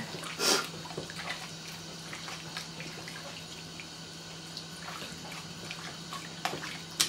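A hand squishing raw chicken strips through an oily lemon-juice marinade in a glass bowl: soft, wet squelching and small clicks, over a faint steady hum.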